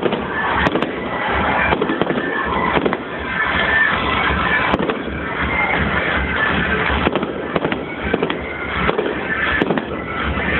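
Fireworks bursting and crackling continuously, with low thuds, over music with held high notes.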